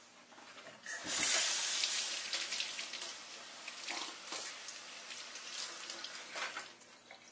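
Kitchen faucet turned on about a second in, water running into a stainless steel sink, loudest at first and then softer. Splashing as a cloth is wetted and squeezed under the stream.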